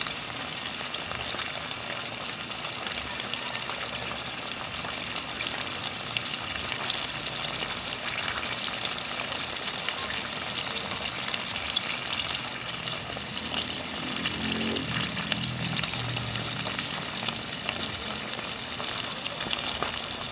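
Chicken livers simmering in adobo sauce in a pot, giving a steady sizzle with fine crackles.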